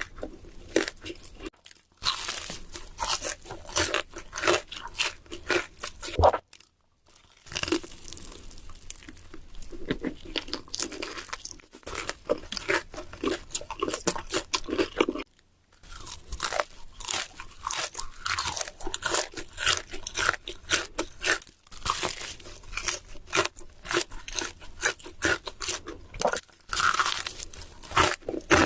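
Close-miked eating: crunchy bites and chewing of food, in dense crackling runs broken by a few short pauses.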